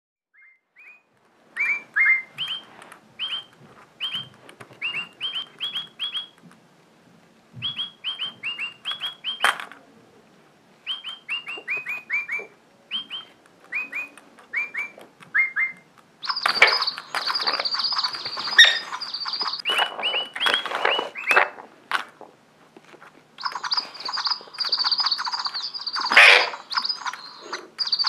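Bird chirping from DigiBird toy birds and a live Alexandrine parakeet. At first it comes in bursts of short, clean tweets, several a second. From about halfway it turns into louder, harsher, denser chirping and squawking, twice.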